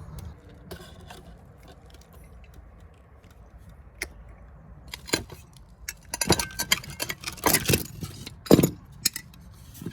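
Metal parts and tools being handled: a quiet first half, then a run of sharp metallic clinks, knocks and rattles from about five seconds in.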